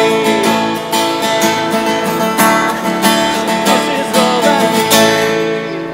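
Acoustic guitar strummed in a steady rhythm, playing a folk-style tune.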